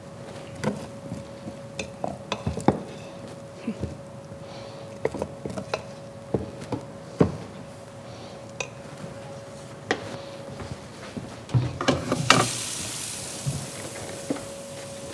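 Metal spoon scraping and clinking against a cooking pot and serving dishes as rice is stirred and spooned out: a series of irregular knocks and clinks. Near the end there is a short hiss of rustling. A faint steady hum runs underneath.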